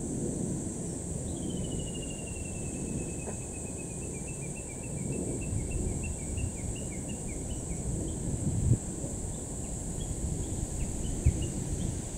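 A small bird sings one long falling whistle about a second in, running into a quick series of short alternating notes, with a few scattered notes later. Under it is a steady high insect buzz and a low wind rumble on the microphone, with a couple of brief bumps.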